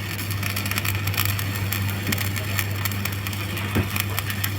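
Stick-welding (SMAW) arc crackling and sputtering steadily as a vertical-up cap bead is run on steel plate, over a steady low hum.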